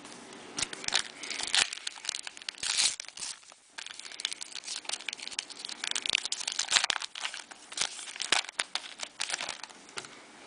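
Wrapper of a trading-card pack being torn open and crinkled by hand, with irregular crackling and rustling and a brief pause a few seconds in.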